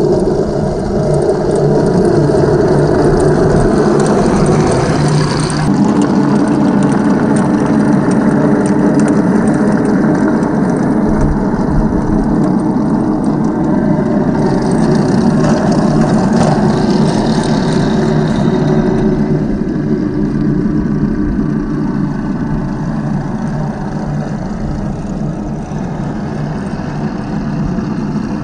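Heng Long 1/16 M1A2 Abrams RC tank driving: its onboard sound unit plays a steady simulated tank engine over the running of its gear motors and tracks. The engine note shifts now and then as it manoeuvres.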